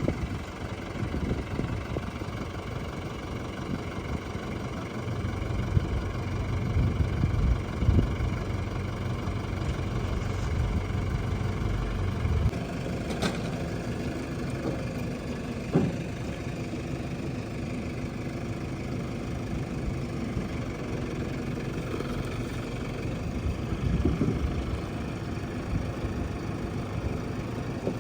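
Engine of heavy machinery idling steadily, running harder for several seconds in the first half, with a few short knocks.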